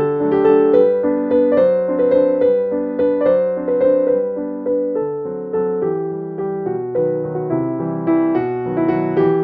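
Background piano music: a melody of struck notes, one after another.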